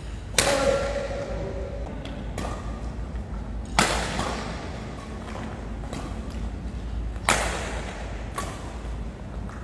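Badminton rackets striking a shuttlecock in a rally: several sharp hits, the loudest about four seconds in, each echoing in a large hall.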